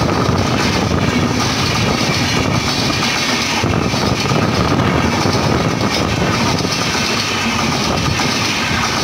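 Coaches of the Sealdah–Bikaner Duronto Express express train running past at speed close by: a loud, steady rush and rumble of wheels on rails.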